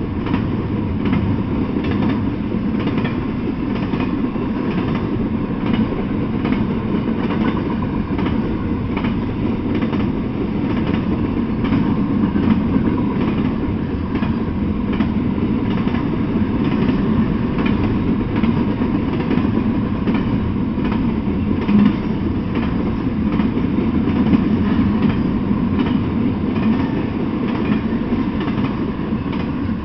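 Double-stack intermodal freight train rolling past, its steel wheels rumbling steadily with an even clickety-clack over the rail joints.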